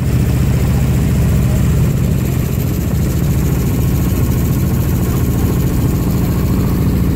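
Boat engine running steadily at low speed, a low even hum with a fast pulsing beat.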